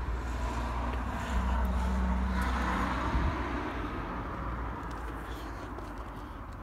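A passing vehicle's rumble, swelling about two seconds in and then slowly fading away.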